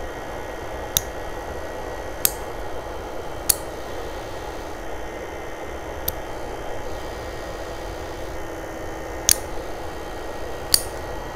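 Steel nail clipper snipping through long nail extensions: six sharp clicks at uneven intervals, over the steady whir of a nail dust collector.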